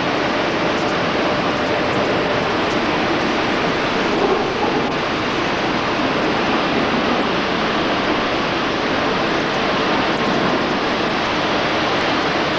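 Steady, even noise of a copper smelter's furnace plant at work, with no distinct knocks or changes.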